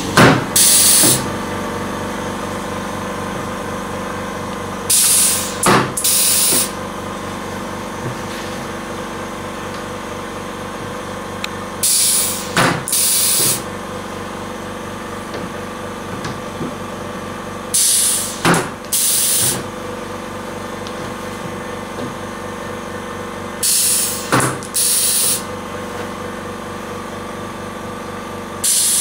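Handheld pneumatic notcher punching aluminium composite panel: each stroke is a hiss of compressed air, a sharp snap of the punch, then a second hiss of exhaust. The stroke comes about every six seconds over a steady hum.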